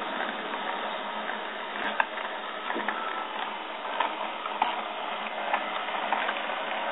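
Cyclone PCB Factory CNC mill milling MDF: steady mechanical noise from its spindle and stepper-driven axes, with irregular short clicks and ticks scattered through it.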